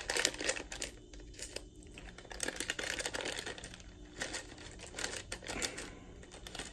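Plastic M&M's candy bag crinkling as it is handled and torn open by hand. Dense crackling in the first second, then scattered crackles after a short lull.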